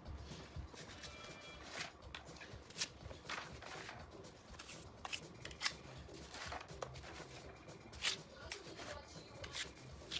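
A small trowel scraping and dabbing wet mortar onto the rough end of an old brick wall, with irregular short scrapes and pats as the mortar is pressed and smoothed into place.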